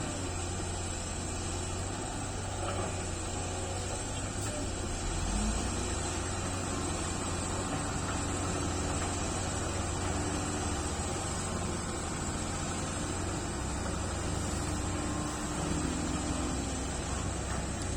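SANY excavator's diesel engine running steadily with a deep hum. A higher, wavering tone comes and goes through the middle as the machine works.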